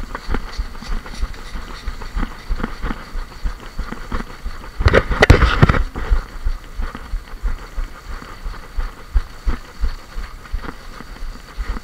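Footsteps of a player moving over the ground, about three steps a second, with kit knocking against the camera. About five seconds in there is a louder burst of rustling lasting about a second.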